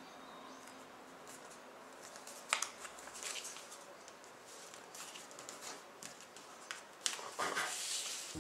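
A sheet of paper being folded and creased by hand: soft rustling, with a sharp crackle of a crease about two and a half seconds in and a longer spell of rustling near the end.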